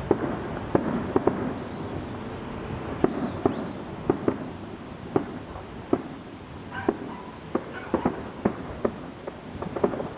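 Fireworks display: irregular sharp cracks and bangs from bursting fireworks over a steady background noise, coming thicker and quicker near the end.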